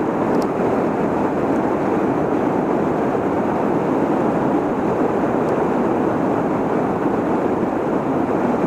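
Steady rushing of river water spilling over a low dam and churning in the current below it.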